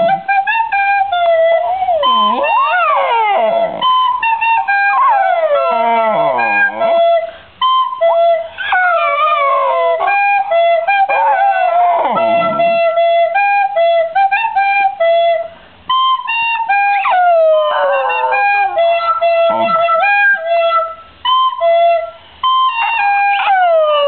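Fox terrier howling along to a recorder: the recorder plays held notes in short steps while the dog's long howls slide up and down over and around them, with a few brief pauses.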